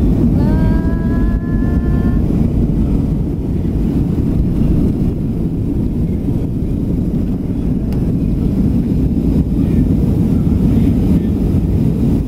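Loud, steady cabin rumble of a Southwest Boeing 737's jet engines at takeoff thrust during the takeoff roll and liftoff.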